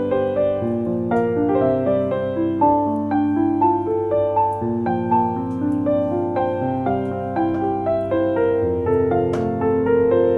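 Background piano music: a melody of short notes, several sounding together, over held low notes.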